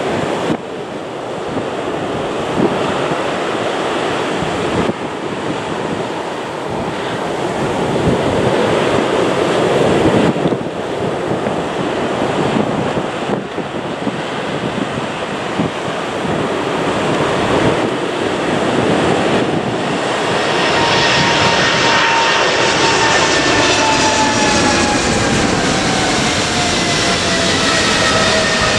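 Boeing 777-200LR's twin GE90 turbofans at takeoff thrust: a steady, loud jet roar as it accelerates down the wet runway and lifts off. Past the two-thirds mark, whining fan tones come through and fall slowly in pitch as the jet climbs past overhead.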